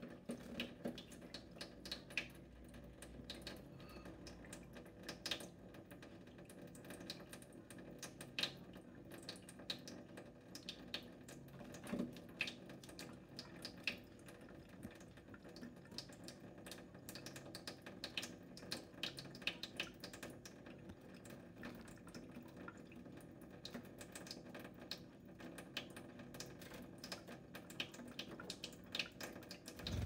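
A thin stream of tap water runs onto a stainless-steel sink drainer in a steady trickle, with irregular sharp drip and splash ticks throughout.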